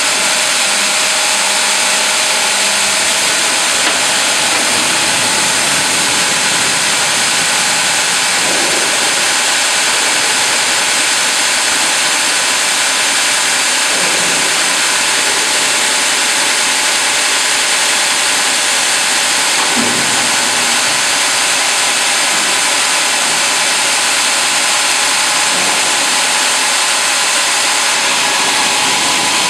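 Steady machine noise from a hydraulic vertical band sawmill and its automatic log carriage running between cuts. A few faint low knocks come about every five or six seconds.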